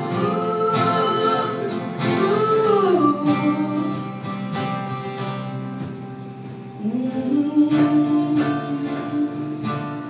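Acoustic guitar strummed while a woman sings wordless, gliding vocal runs; the voice drops out for a few seconds in the middle, leaving the guitar, and comes back about seven seconds in.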